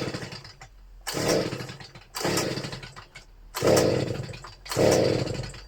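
Stihl BG 56 leaf blower's small two-stroke engine being pull-started on choke: about five rope pulls, roughly one a second, each a short whirring crank that dies away without the engine catching. The owner takes the refusal to start for a clogged exhaust causing back pressure.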